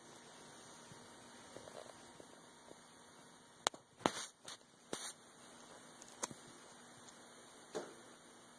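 Quiet room tone: a steady hiss with a faint hum, broken by a few sharp clicks and short taps around the middle and a couple more later.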